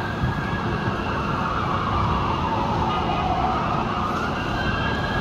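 Fire engine sirens wailing, their pitch rising and falling slowly and overlapping, over a steady city rumble.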